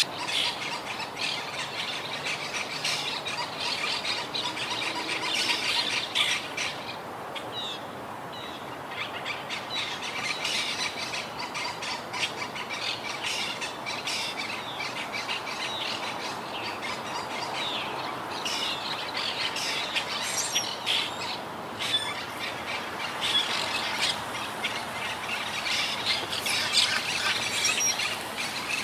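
A flock of monk (Quaker) parakeets chattering and squawking continuously, many short, harsh calls overlapping, over steady background noise.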